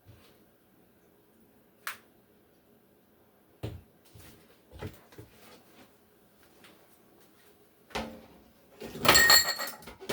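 Scattered knocks and clatters of kitchen items being handled and set down, a few separate knocks at first, then a louder run of clattering near the end.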